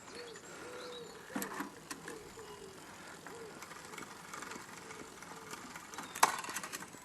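Faint running and light clicks of a mountain bike's drivetrain as the newly fitted Shimano Deore LX crankset is turned, with one sharp click about six seconds in.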